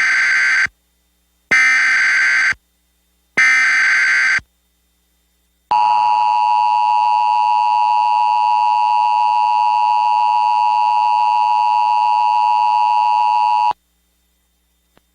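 Emergency Alert System SAME header for a tornado warning: three bursts of warbling data tones, each about a second long and about a second apart, followed by the EAS attention signal, a steady two-tone buzz held for about eight seconds that cuts off abruptly.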